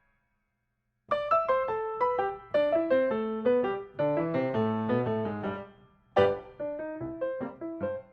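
Background piano music: a run of quick struck notes, after about a second of silence at the start.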